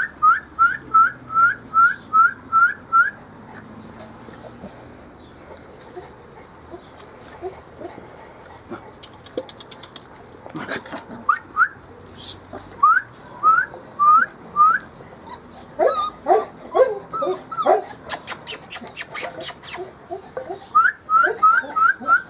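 Cretan hound puppies whining and yipping as they tug at a hare skin: runs of short, rising, high whines about three a second, with lower yaps partway through. A quick run of clicks follows the yaps.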